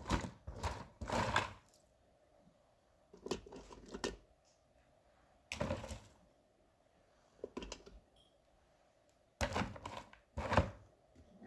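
Hard-boiled eggs being moved from an Instant Pot into a bowl of ice water: five short bursts of knocking and clinking, a few seconds apart.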